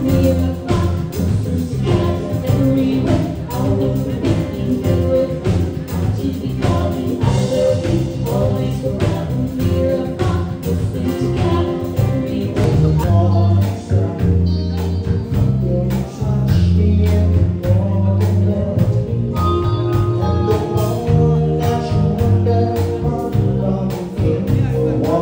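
Live band playing a song: a singer over electric bass, a drum kit and guitar, with regular drum hits and a prominent bass line, amplified through the stage sound system.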